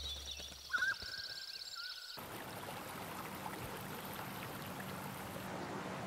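A bird's high, rapid trill and a short whistled note. About two seconds in, a sharp cut to the steady rush of a shallow, rocky river.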